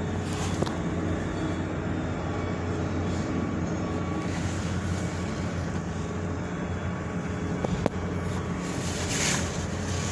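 Mobile crane's engine running steadily in a low drone, with two sharp clicks, one just after the start and a louder one about eight seconds in.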